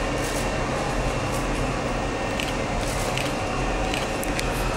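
Steady hum and whir of a stopped Odakyu 7000 series LSE express train's on-board equipment and air conditioning at the platform. A few short high clicks come in the second half.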